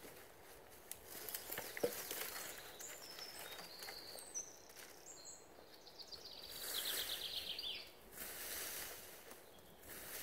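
Footsteps and rustling in dry leaf litter, with a stick scraping the woodland floor in bursts and a sharp knock about two seconds in. Birds sing in the background, including a rapid trill of evenly spaced notes around the middle.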